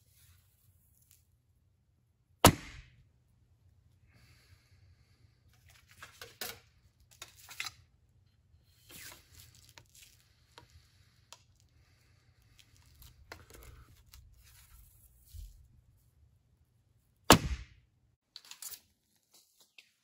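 A hand-drawn bow shot twice, each release a single sharp, loud snap, the two about fifteen seconds apart. Quieter rustling and handling noises fall between the shots.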